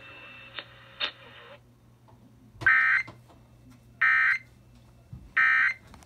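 Emergency Alert System end-of-message signal played over a radio: three identical short bursts of shrill digital data tones, about a second and a half apart, marking the close of the test alert. A faint broadcast hiss stops about a second and a half in, before the bursts.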